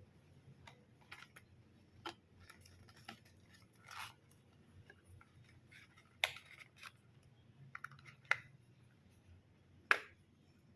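Scissors snipping and plastic packaging rustling as a parcel is opened, with scattered small clicks and three sharper clicks in the second half.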